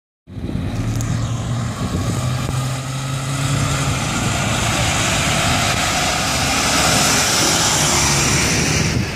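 Diesel engine of a cab-over heavy truck pulling through a roundabout and driving past at close range: a steady low engine drone, with tyre and road noise swelling to its loudest about seven seconds in as the truck goes by.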